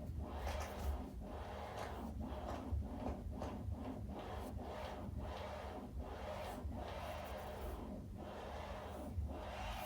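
Vinyl single playing with crackle and irregular clicks from dirt in the grooves, a few louder pops standing out, over a low rumble.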